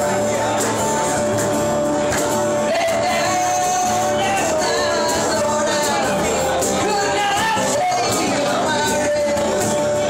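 Live band music: guitars strummed over a steady drumbeat on a drum kit, with a voice singing a melody through the middle of it.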